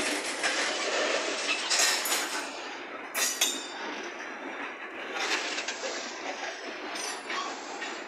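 Freight train of hopper cars and boxcars rolling past close by: steel wheels clattering steadily over the rails, with several brief, sharper bursts of wheel screech.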